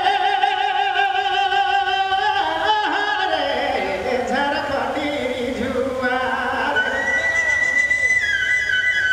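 A male voice singing a Nagpuri folk song through a PA, drawing out long held notes with a wavering vibrato, with no drumming. The pitch steps down near the end.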